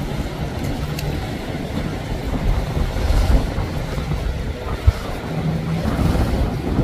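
Boat engines running underway, a steady low rumble with wake and waves splashing and wind buffeting the microphone. There is a single sharp knock about five seconds in.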